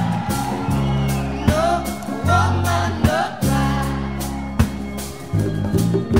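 Background music: a song with a singing voice over sustained instrumental chords, with a sharp drum hit about every second and a half. The voice sings mainly in the middle of the passage.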